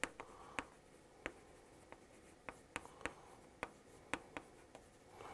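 Chalk writing on a chalkboard: a faint string of short, irregular taps and scratches as the chalk strikes and drags across the board.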